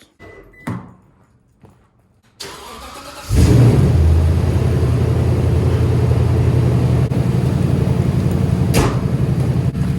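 Pickup truck engine being started after sitting parked in the cold: a short crank about two and a half seconds in, then it catches about a second later and settles into a loud, steady idle. One sharp click near the end.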